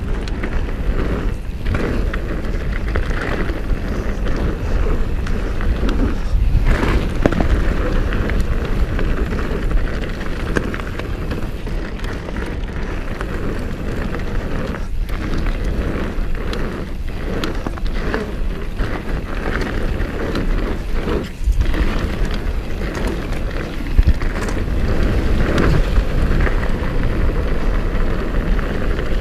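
Downhill mountain bike riding fast over a dirt forest trail: tyres rolling on dirt with a steady low rumble, broken by many short knocks and rattles as the bike hits bumps.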